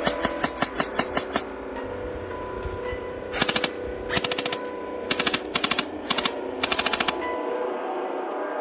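Airsoft gun firing on full auto: one longer burst of about nine rapid shots at the start, then six short bursts from about three and a half to seven seconds in. Background music plays underneath.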